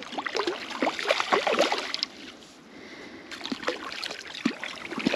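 Hooked trout thrashing at the water's surface as it is played in, a flurry of irregular splashes that eases off for about a second midway and then picks up again.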